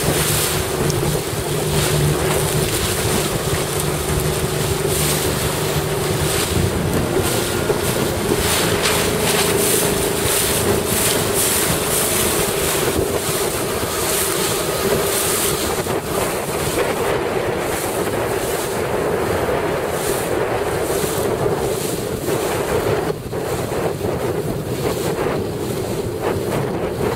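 Wind buffeting the microphone in gusts over the rush of waves and spray on a choppy sea, with a steady engine hum from a motorboat underneath; a lower part of the hum fades out about seven seconds in.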